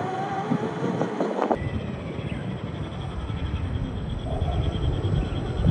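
Electric scale RC crawler's brushed 540 motor and gears whining, the pitch wavering with throttle. About a second and a half in the sound changes abruptly to a steady rough noise with a deep rumble.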